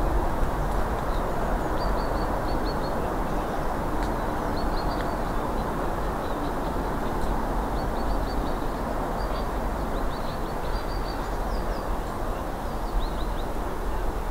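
Small birds chirping in short runs of quick high notes, again and again, over a steady low rushing background noise.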